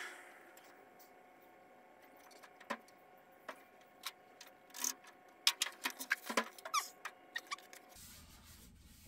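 Steel truck door on a '48 Willys Overland being swung and handled during a test fit: scattered metal clicks and knocks, busiest after about five seconds, with a couple of short squeaks a little before seven seconds.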